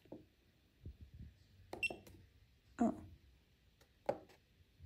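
A few soft button clicks on a Genmitsu GRBL offline controller's keypad. The one about two seconds in comes with a short, high electronic beep.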